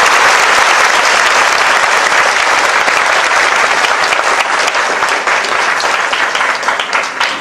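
Audience applauding: dense, steady clapping that thins into separate, scattered claps near the end.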